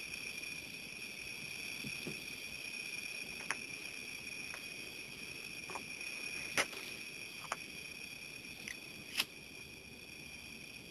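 Steady high chirring of night insects such as crickets, with a few sharp clicks over it: one about three and a half seconds in, the loudest just past the middle, and two more near the end.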